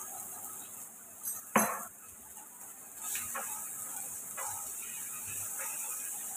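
A sharp knock of a spoon against the paste container about one and a half seconds in, then from about three seconds in a steady sizzle as green chilli and ginger paste fries in hot mustard oil, with a spatula scraping and stirring the pan.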